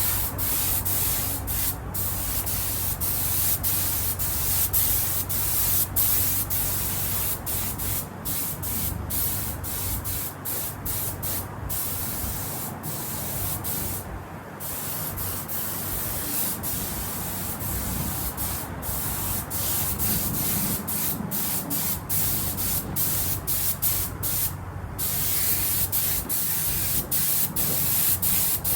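Spray gun hissing steadily as leather colourant is sprayed onto car seat leather, with many short breaks in the spray and two longer pauses, and a steady low hum underneath.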